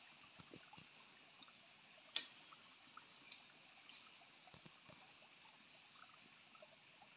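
Near silence: faint ambience, a soft steady hiss with scattered light ticks and one sharper click about two seconds in.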